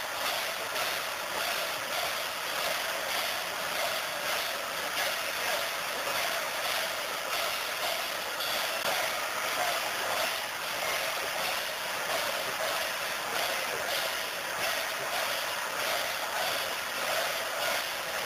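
Steady, continuous din of a large, dense crowd, with no single voice or beat standing out.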